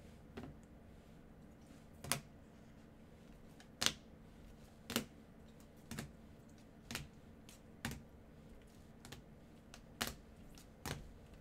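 Rigid plastic toploader card holders clicking against each other as they are flipped through one after another: about ten short, sharp clacks, roughly one a second.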